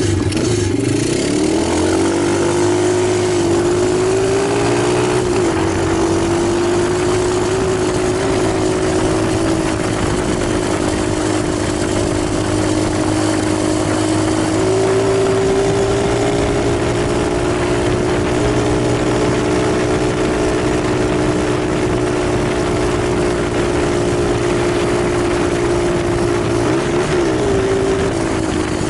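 Italjet 125 cc pit bike engine running at a steady, held pitch: it rises about a second in, steps up a little about halfway through, and wavers and drops near the end.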